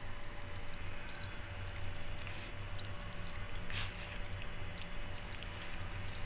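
Metal fork stirring saucy penne pasta in a paper cup: soft squishing with a few light clicks and one brief scrape nearly four seconds in, over a steady low hum.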